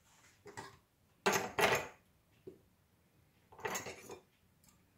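Spatula clinking and scraping against a pan and a china plate as meat is lifted out of the sauce, in several short bursts, loudest about a second and a half in.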